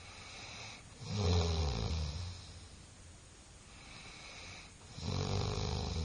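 A person snoring: two loud, low snores about four seconds apart, each after a softer hissing breath.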